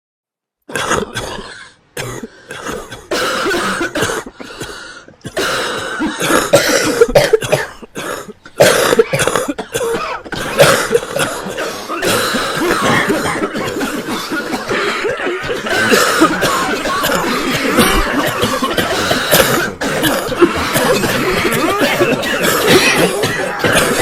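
Repeated coughing: separate coughs with short gaps at first, then from about eight and a half seconds in a dense, almost unbroken run of overlapping coughs.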